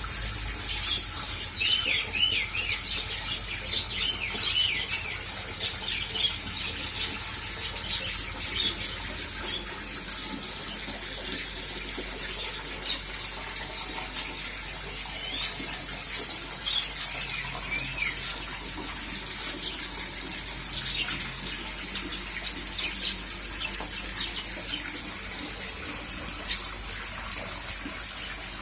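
Budgerigar chirping and warbling in short curving calls, busiest in the first few seconds and again around the middle, over a steady hiss of falling rain.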